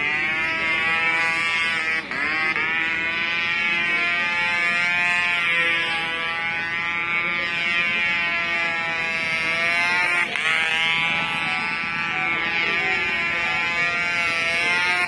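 Small engine of a control-line model aircraft buzzing at high revs through an aerobatic display, its pitch swooping and recovering several times as the plane dives, climbs and circles.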